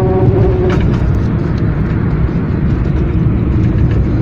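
Steady low rumble of road and wind noise from a small car driving at speed with a kayak strapped to its roof; the roof load vibrates in the wind.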